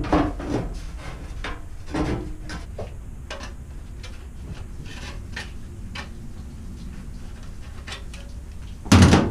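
Scattered knocks and clicks of sheet-metal smoke pipe being handled and fitted together, with a loud metallic bang near the end.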